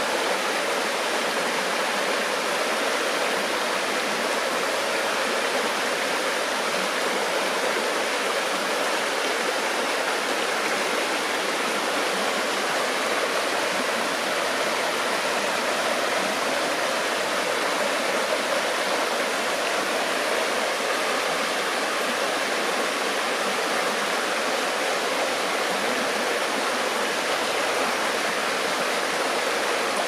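Shallow river rushing over rocks, water spilling in a small cascade over a stone: a steady, even rush of splashing water that never lets up.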